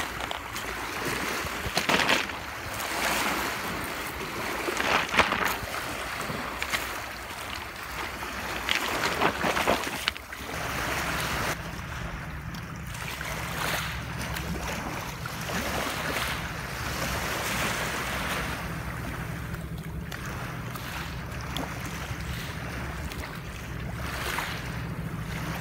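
Waves washing on a pebble shore, with wind gusting on the microphone. About ten seconds in, a steady low wind rumble takes over.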